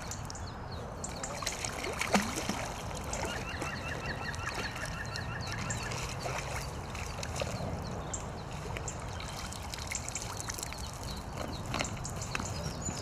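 Water splashing and trickling as a hooked fish is drawn into a landing net and lifted out dripping, with a sharp knock about two seconds in. A bird calls a quick run of short repeated notes in the middle.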